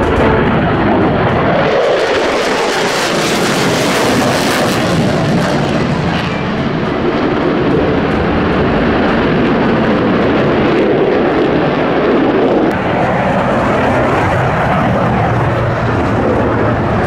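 Loud, continuous jet noise from Blue Angels F/A-18 Super Hornets flying past. About two seconds in it swells to a brighter, hissing roar as a jet passes close, then settles to a steady rumble.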